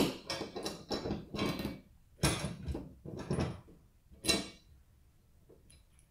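Stainless steel luggage rack being shifted on its stands while its screws are started by hand: a sharp click, then a string of about eight short metallic rattles and scrapes over four seconds or so, then only faint ticks.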